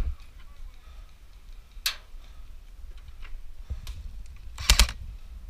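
Airsoft gunfire heard as sharp clicks: a single shot about two seconds in, then a quick burst of three or four shots near the end.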